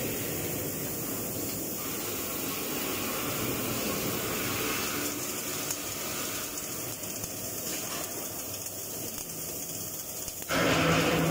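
Arc welding of an overhead steel butt joint: the welding arc crackles and hisses steadily. About ten seconds in, a louder steady sound with a low hum cuts in.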